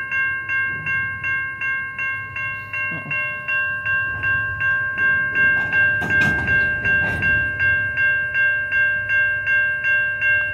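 Type 3 Safetran electronic crossing bell ringing steadily at roughly three strikes a second, the crossing held active by a train standing in it. A brief low rumble with a couple of knocks comes about six seconds in.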